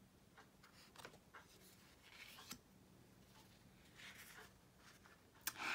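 Faint handling of matte-cardstock oracle cards: soft slides and light taps as cards are moved and turned over, with a louder brief swipe near the end.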